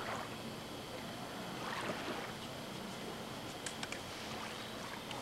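Small lake waves lapping on a sandy shore as a steady wash, swelling once about two seconds in, with a few faint clicks a little later.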